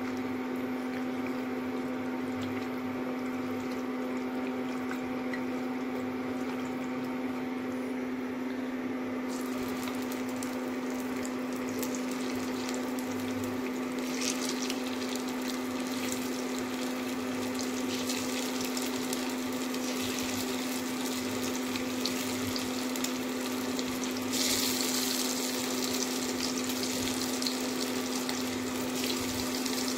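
Hot oil sizzling in a wok as cornflour-coated, marinated chicken pieces are dropped in one at a time to fry, the sizzle growing louder about halfway through and again near the end. A steady hum from the induction cooktop runs underneath.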